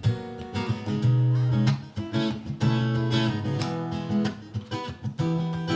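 Baritone guitar playing a song's instrumental intro live: a run of picked notes over low bass notes, without singing.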